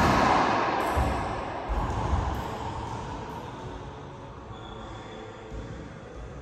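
Racquetball struck hard with a racquet inside an enclosed court: a loud crack whose echo fills the court and dies away over about three seconds, followed by a few dull thuds of the ball or feet about one to two seconds in.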